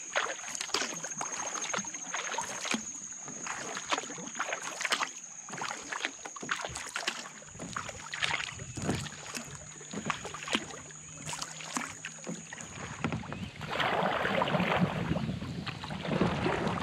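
Kayak paddling on a river: paddle blades dipping and splashing through the water, with irregular drips and light knocks, and a louder rush of water near the end.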